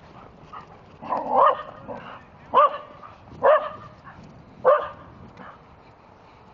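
American Eskimo dog barking four times, about a second apart; the first bark is drawn out and the other three are short and sharp.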